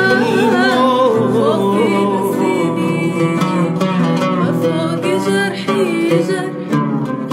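A woman singing an Arabic song with a winding, ornamented vocal line, accompanied by a plucked oud.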